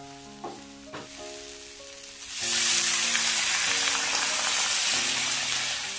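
Water poured into a hot pan of frying okra and masala, sizzling loudly from about two and a half seconds in.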